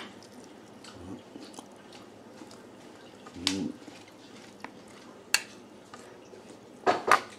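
Knife and fork cutting duck breast on a dinner plate, with light scattered clicks of cutlery on the plate, a sharp clink a little past halfway, and chewing.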